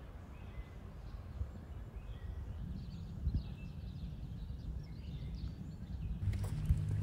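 Outdoor winter ambience: a low, unsteady wind rumble on the microphone with a few faint bird chirps in the middle. A steadier low hum comes in near the end.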